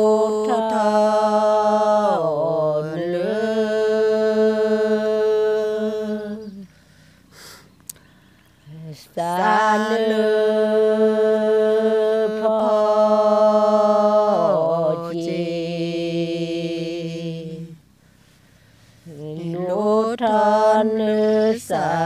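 Unaccompanied Karen chanted song by a woman's voice: long notes held on one pitch, each phrase sliding down at its end. It comes in three phrases, with a short pause about a third of the way in and another near the end.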